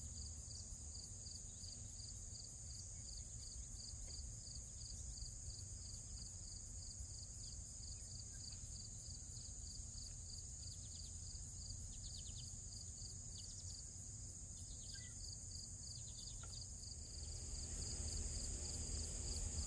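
Outdoor summer ambience of insects: a regular, evenly pulsing high chirp over a continuous high drone, with a low background rumble and a few faint bird chirps in the middle.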